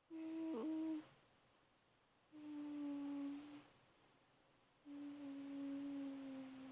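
Sleeping 8-week-old German Shepherd puppy making three drawn-out humming sounds, each a steady tone lasting one to two seconds with short quiet gaps between. The first is the shortest and wobbles briefly in pitch.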